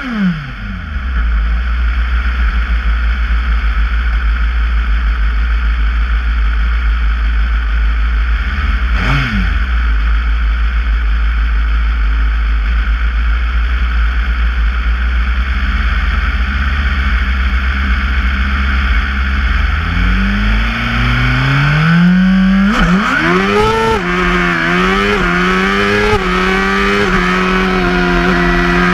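Single-seater racing car's engine idling steadily, with one short blip of the throttle about nine seconds in. About twenty seconds in it revs up as the car launches, then accelerates hard with the pitch dropping and climbing again at two gear changes before settling to a steady note.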